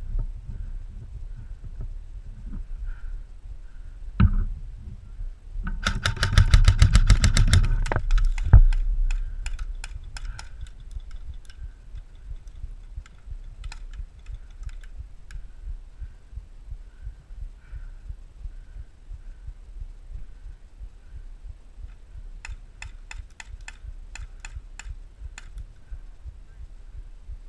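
Airsoft guns firing: a loud rapid burst about six seconds in lasting some two seconds, then scattered single shots, and near the end a fainter string of evenly spaced shots.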